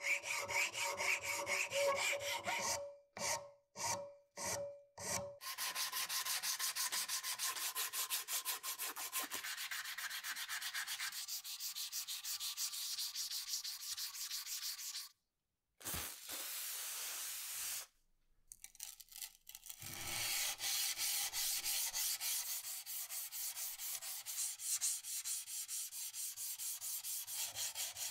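Hand sanding of a wooden knife handle with abrasive paper: at first a handful of separate strokes with a thin squeak, then quick, steady back-and-forth rubbing, broken by a couple of short pauses.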